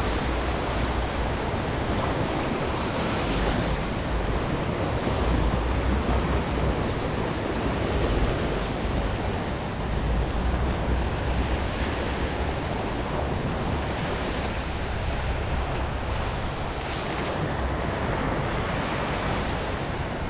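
Small surf breaking and washing up a sandy beach, with wind buffeting the microphone in low gusty rumbles.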